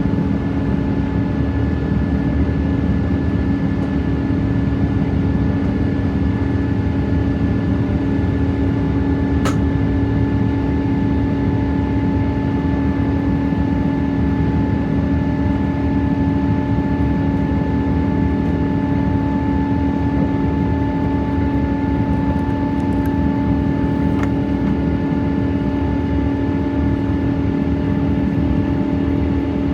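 Boeing 777-200 cabin noise: the twin turbofan engines and rushing air make a steady drone with a steady low hum. A single sharp click sounds about a third of the way in.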